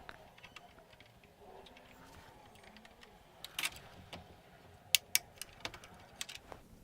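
Scattered small clicks and taps as an Intel Core i7-4790K is seated in a motherboard's LGA 1150 socket and the socket's metal retention plate and lever are closed. The sharpest clicks come about three and a half and five seconds in.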